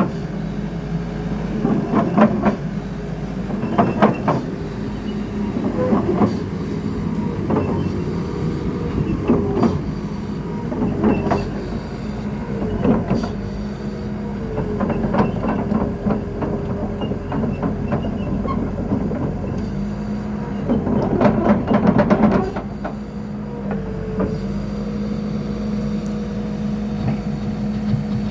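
Caterpillar 308D CR mini excavator running, its diesel engine humming steadily under a hydraulic pump whine that sags and recovers each time a function is worked. Repeated metallic clanks and rattles come every couple of seconds, the loudest bunch near the end.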